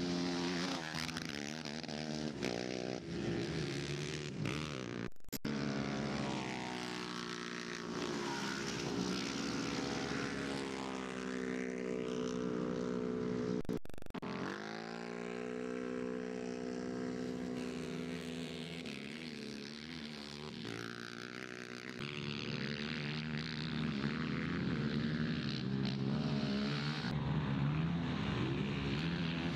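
Racing quad ATV engines revving and accelerating, their pitch rising and falling, in several clips joined by abrupt cuts about five seconds in and near the middle. After the middle cut the engine of a side-by-side UTV climbs in pitch.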